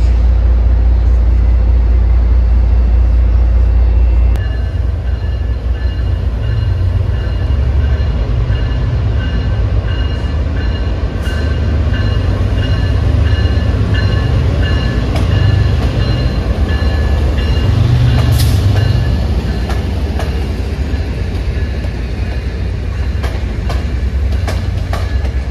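MBTA commuter rail train of bilevel coaches rolling slowly through the station: a low rumble with a steady high-pitched wheel squeal over it, and sharp clicks from the wheels near the end. The first four seconds hold a heavier, deeper rumble.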